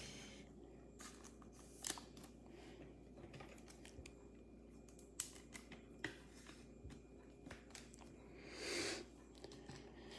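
Faint plastic rustling and small clicks as a trading card is slid into a soft plastic card sleeve, with one longer rustle near the end.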